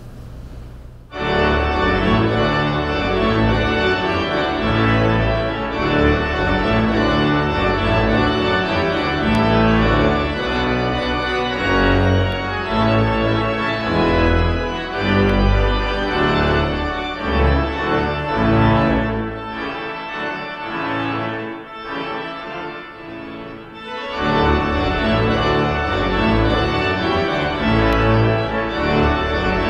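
Organ music in a church service: sustained chords over a deep bass line, starting about a second in, with a softer stretch about two-thirds of the way through before the full sound returns.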